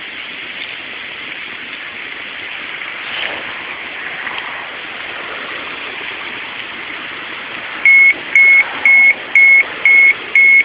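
Steady background rushing, then a Ukrainian-made radiation dosimeter's alarm starting about three-quarters of the way through: short, loud, high beeps repeating about twice a second. The alarm signals a high dose-rate reading.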